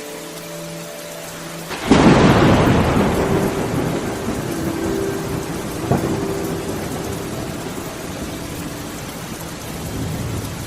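Rain falling steadily, with a loud clap of thunder about two seconds in that rumbles away over several seconds, and a second, shorter crack near six seconds.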